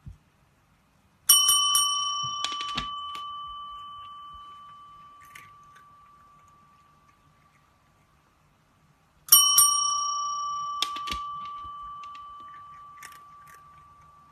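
A desk service bell struck twice by a cat's paw, about a second in and again about nine seconds in. Each ding rings on one clear high tone and fades slowly over several seconds, with a few light taps and rattles just after each strike.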